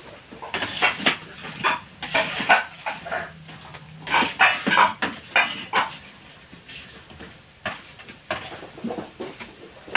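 Metal spatula and wire strainer scraping and clinking against a wok of krupuk frying in hot oil, in irregular bursts that thin out after about six seconds.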